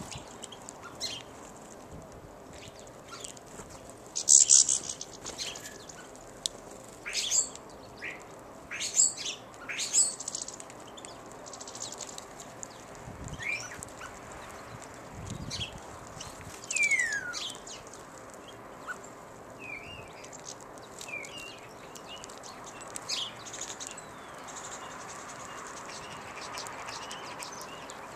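Small garden songbirds calling: short, sharp chirps scattered throughout, loudest about four seconds and ten seconds in, with one clear falling call about seventeen seconds in.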